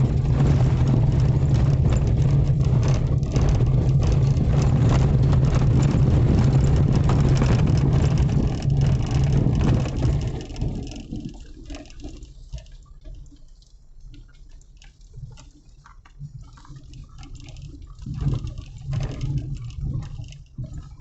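Car driving, heard from the cabin: a steady engine and road drone with a hiss of tyres. It drops away sharply about halfway in, leaving quieter, uneven sounds.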